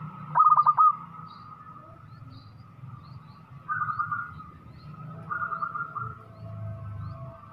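Zebra dove (perkutut) singing: a quick, loud run of about five rolling coo notes just after the start, then fainter trilled phrases about four and five and a half seconds in. Faint high chirps of small birds are heard behind.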